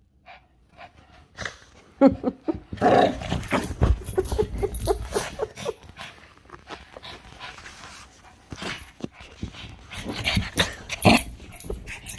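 Shih tzu in a frenzy of play, making short, irregular yaps and growly grunts, mixed with the rustle of a fleece blanket and phone handling. The loudest outbursts come about two seconds in and again near the end.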